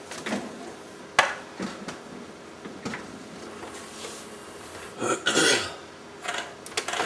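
Handling noises on a workbench: a sharp click about a second in, a few lighter knocks, and a louder rustling burst about five seconds in.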